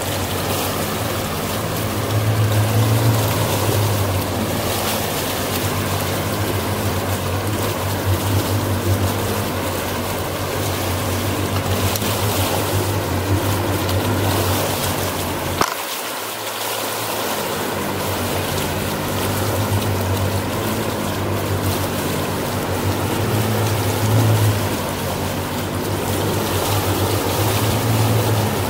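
A motorboat's engine runs at a steady low hum while water rushes and splashes along the hull. About halfway through there is a sharp click, and the engine hum dips out for a second before returning.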